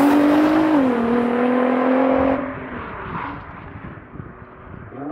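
Nissan GT-R Nismo's twin-turbo V6 accelerating hard away down the track. Its pitch climbs, drops with an upshift about a second in, then climbs again. The engine sound cuts off suddenly a little over two seconds in, leaving only a faint sound.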